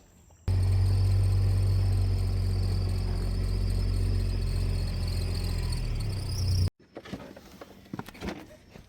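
A motor or engine running steadily with a deep hum, starting abruptly about half a second in and cutting off sharply about six seconds later.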